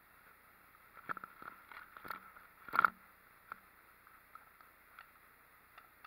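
A scatter of sharp knocks and clicks, loudest as a quick cluster about three seconds in.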